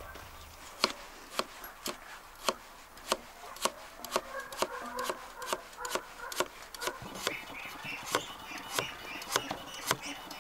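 Knife chopping on a wooden cutting board: sharp knocks at an even pace of about two a second, starting about a second in.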